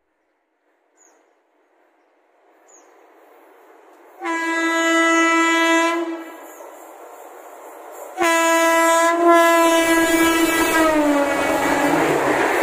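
Indian Railways electric locomotive of the speeding Golden Temple Mail sounding its horn in two long blasts, the second dropping in pitch as the engine passes. The loud rush and clatter of the train going by follows.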